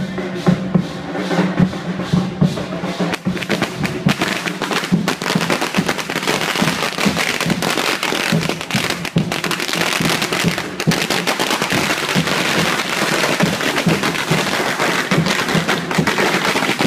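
Drumming music, joined about four seconds in by the dense, rapid crackle of a string of firecrackers going off.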